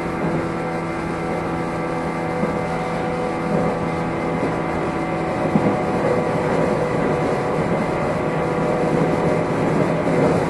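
Interior running sound of a JR 115-series electric multiple unit's motor car, KuMoHa 115-302: a steady pitched hum over the rumble of the wheels on the rails, heard from inside the car, while the train runs at a steady speed between stations.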